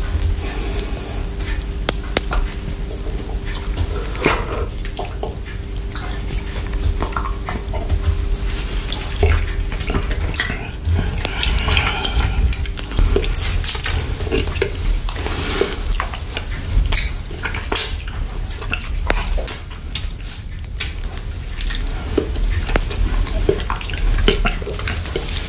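Close-miked wet mouth sounds from eating a chocolate lollipop with whipped cream: licking, sucking and lip smacks, with scattered small clicks, over a steady low hum.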